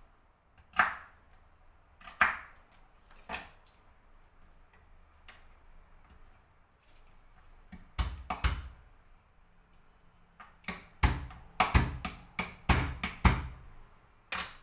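Irregular knocks and thuds of kitchen preparation work with the lemongrass and other remedy ingredients: a few single knocks spaced a second or so apart, then denser runs of heavier knocks in the second half.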